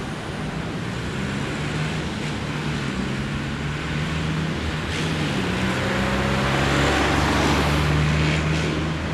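Road traffic: a motor vehicle's engine running with a steady low hum and road noise, growing louder and loudest near the end.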